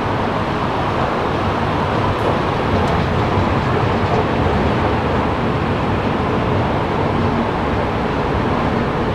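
Metro station escalator running, a steady mechanical rumble and hum.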